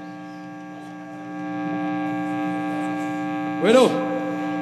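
Steady electrical hum from a live band's stage amplification, an even drone of several held tones that gets a little louder about a second in. Near the end a short sound swoops up and down in pitch over it.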